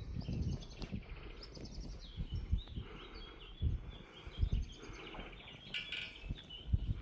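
Small birds singing and twittering, with quick trilled phrases, over an uneven low rumble.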